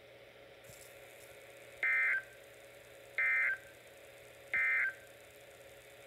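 Three short bursts of warbling digital data tones from a Midland NOAA weather radio's speaker, each about a third of a second long and spaced about 1.4 seconds apart. This is the SAME end-of-message code that closes a broadcast warning. A faint steady hiss from the receiver lies between the bursts.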